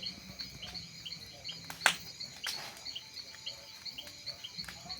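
Crickets chirping in a steady rhythm of short, high chirps, with a single sharp click about two seconds in.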